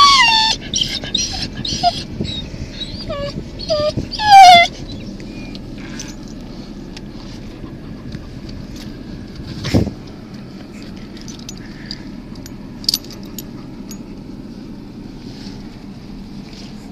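Alaskan malamute whining and yipping in a series of short calls that slide down in pitch over the first five seconds, the loudest one at about four and a half seconds. Then a steady low rumble, with a single sharp knock about ten seconds in.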